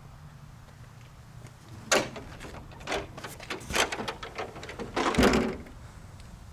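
A run of rattling knocks and clunks ending in a heavy slam about five seconds in, as a door or panel on a box truck is shut.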